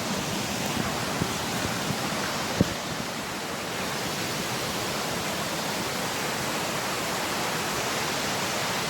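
Waterfall rushing steadily, a constant even noise of falling water, with one brief knock about two and a half seconds in.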